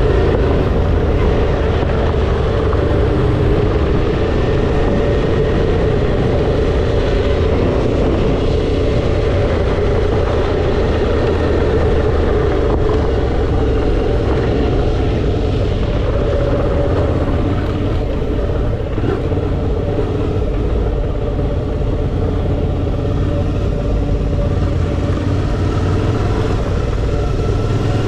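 Suzuki V-Strom 650 XT's 645 cc V-twin engine running at a steady riding speed, with wind and tyre noise mixed in. A little quieter in the second half.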